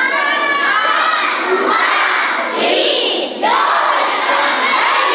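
A crowd of children shouting and cheering together, many high voices at once, in two loud stretches with a short break about three and a half seconds in.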